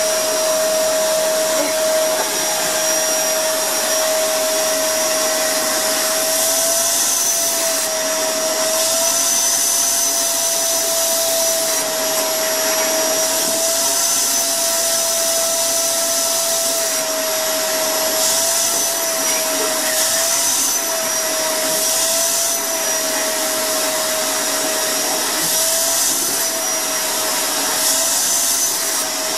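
Dirt Devil canister vacuum cleaner running steadily as it is drawn over a cat's fur, a steady hum with a high whine whose pitch wavers slightly from time to time.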